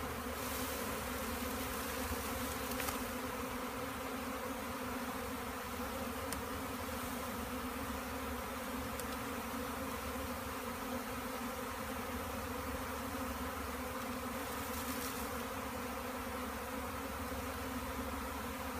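A large swarm of honey bees buzzing: a steady, even drone with many overtones.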